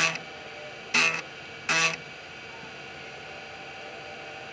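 IBM PS/2 Model 30's 3.5-inch 720 KB floppy drive stepping its head during a diagnostic seek test: three short pitched buzzes in under two seconds, the first right at the start, over the machine's steady hum.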